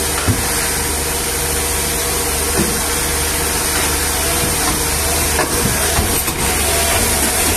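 Heavy diesel engine running steadily, a constant low drone under a strong hiss, with a few faint knocks.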